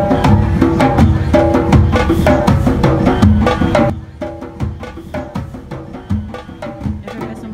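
Percussion music: rapid strikes on pitched, briefly ringing instruments over low drum beats. About four seconds in it drops much quieter and carries on.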